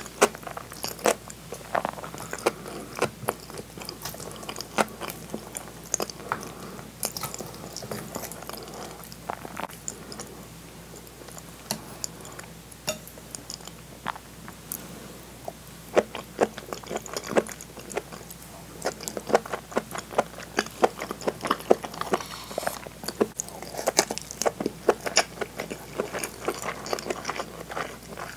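Close-miked chewing and mouth sounds of someone eating cheese-filled hamburg steak, potato salad and rice, with many short sharp clicks.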